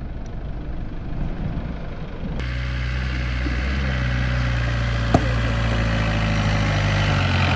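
Isuzu V-Cross pickup's engine running steadily as a low hum. It turns suddenly fuller and clearer a little over two seconds in. There is a single sharp click about five seconds in.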